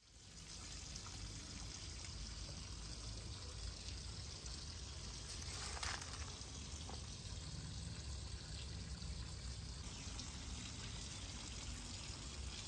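Water spraying from a garden hose, a steady rush of water.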